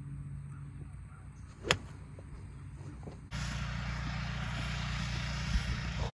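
A golf iron striking the ball once, a single sharp crack about two seconds in. After a cut, a steady rushing outdoor noise.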